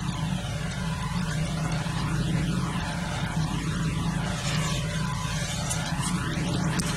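Steady low mechanical drone whose tone shifts slowly, with a whooshing quality throughout.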